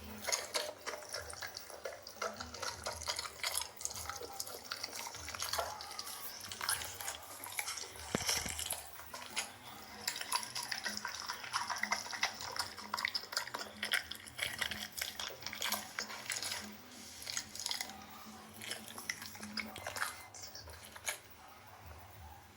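A dog eating, gulping down small balls of food with irregular wet smacking and clicking sounds.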